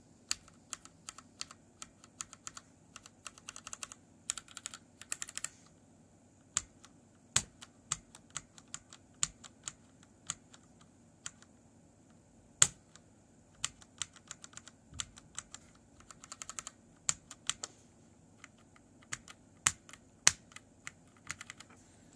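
Keys on a mechanical keyboard with Gateron switches and Cherry MX keycaps being pressed and released: scattered single clacks and a few quick runs of presses, with one sharp louder clack about halfway through. The keycaps are catching on the Gateron switch housings.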